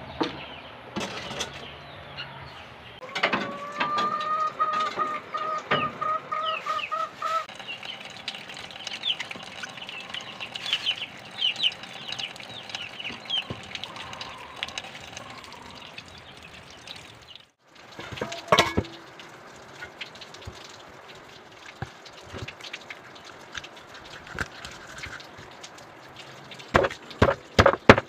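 Chicken calls: a long wavering call a few seconds in, then a run of short high chirps, over scattered clicks and knocks. A few sharp knife chops on a wooden chopping board near the end.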